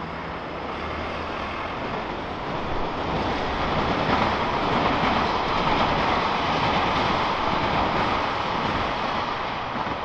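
A train passing over a railway bridge. Its noise builds over the first few seconds, is loudest through the middle, and eases off near the end.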